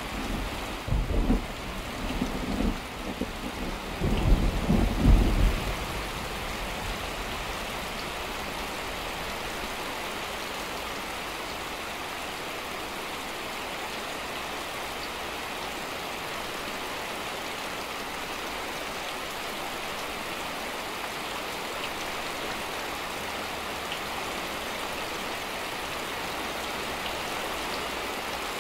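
Thunder rumbling through the first few seconds, the loudest part, then rain falling steadily.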